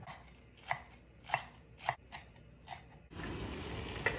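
A handful of sharp knocks about half a second apart. Then, about three seconds in, a steady hiss from a stainless steel steamer heating on its burner, with a light metal clink as its lid is set on near the end.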